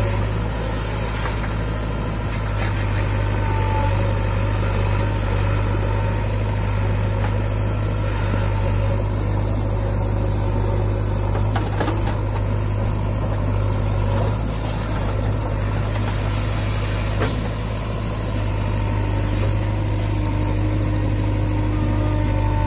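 JCB 3DX backhoe loader's diesel engine running steadily, a deep continuous drone, with a couple of faint knocks from the machine working.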